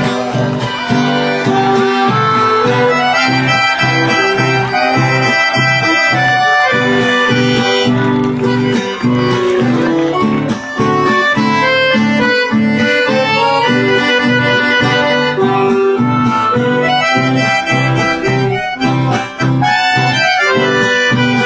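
Piano accordion playing a quick instrumental melody, with acoustic guitar accompaniment underneath.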